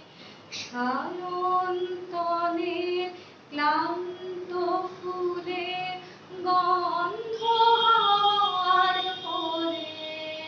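A woman singing solo, in phrases of long held notes joined by slides, with short breaths between phrases about a third of the way in and again just past the middle.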